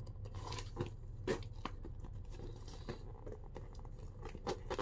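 Checkered canvas handbag being handled: rustling and small clicks as it is turned over and opened, with its chain strap and fittings tapping, the sharpest clicks about a second in and near the end.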